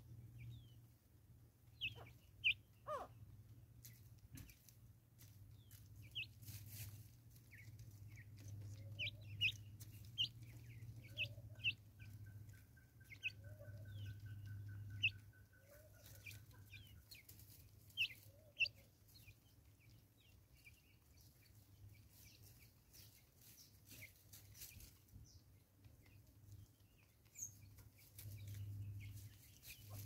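Natal spurfowl pecking grain off a wooden log, its beak tapping the wood, with soft low clucking. Sharp short chirps from other birds come throughout and are the loudest sounds, and a steady trill runs for a few seconds midway.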